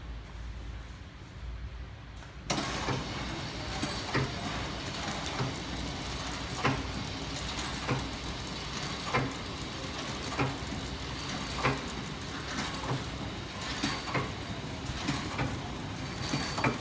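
Horizontal flow-wrap packing machine running while it wraps pancakes: a steady mechanical hum with a sharp knock repeating about every 1.2 seconds, one per machine cycle, and a faint high whine. The sound grows louder and fuller about two and a half seconds in.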